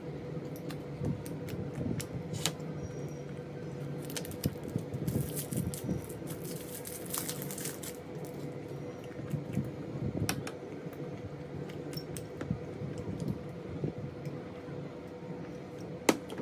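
A plastic sweet wrapper crinkling as it is torn open, loudest about four to eight seconds in. Small clicks and taps are scattered through, with a sharp click near the end, over a faint steady hum.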